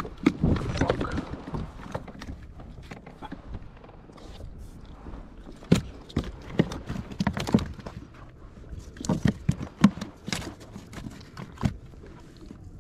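Irregular sharp knocks and thumps from landing and handling a freshly hooked fish, with rustling in the first second or so.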